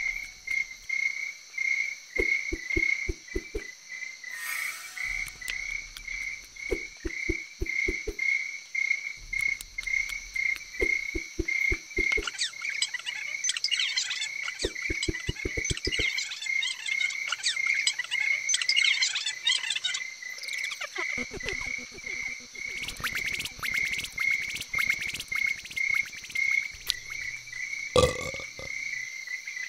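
An evening frog-and-insect chorus, a steady chirping pulse about two or three times a second. Over it come short runs of quick clicks and crunches, with crinkly rustling in the middle stretch: food being unwrapped from leaf wrappers and eaten.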